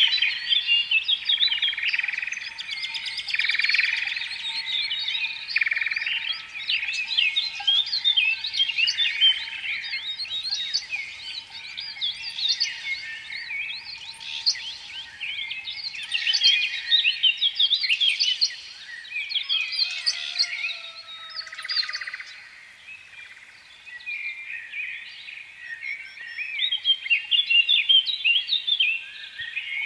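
Many small birds chirping together in a dense, continuous twitter of quick overlapping chirps, which thin out briefly about two-thirds of the way through.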